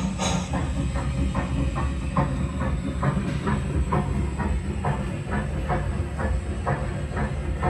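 Steam locomotive running, with a steady beat of about three strokes a second over a low rumble and steam hiss.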